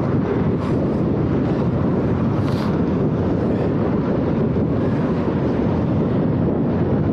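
Strong wind rushing over the microphone of a camera on a moving bicycle: a loud, steady low rumble, with a brief sharper hiss about two and a half seconds in.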